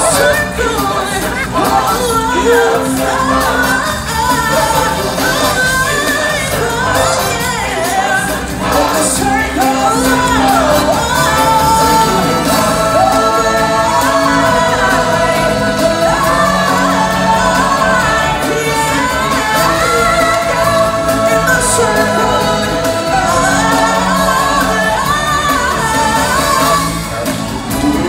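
Stage-show musical number: singers performing a song over loud music with a steady accompaniment.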